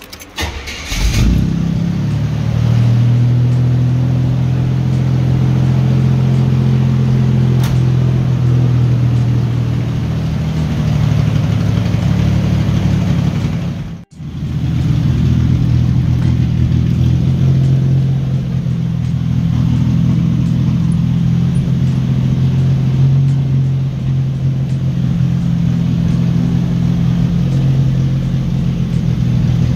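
1983 Buick Regal's engine cranking and catching about a second in, then idling steadily. The sound cuts out for an instant near the middle.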